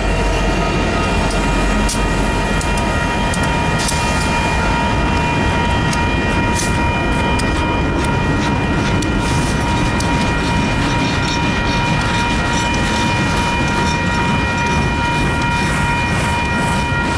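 Union Pacific diesel freight train passing close by: a deep locomotive engine rumble at first gives way to the rolling rumble and clatter of freight cars, with wheel clicks growing more frequent later on. A steady high ringing tone sits over the noise.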